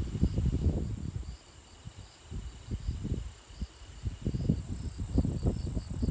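Insects chirping in a fast, even pulsing pattern, under loud, irregular low rumbling from wind buffeting the microphone. The rumbling eases for about a second, then picks up again.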